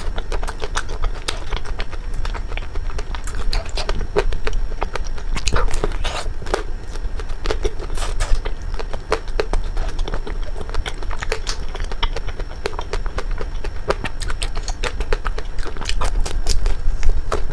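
Crunching and chewing of a crisp black wafer ice cream cone: a run of irregular crackles and clicks as it is bitten and eaten.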